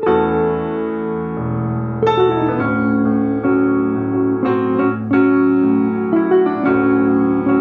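Grand piano and red semi-hollow electric guitar playing an instrumental duo piece: sustained chords left ringing, with a new chord or note struck every second or so.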